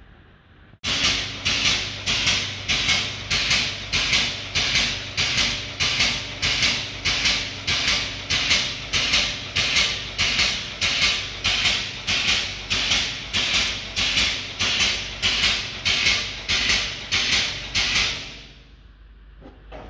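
A loud mechanical sound that pulses evenly, about two and a half pulses a second, each a sharp hissy burst that dies away. It starts suddenly about a second in and fades out near the end.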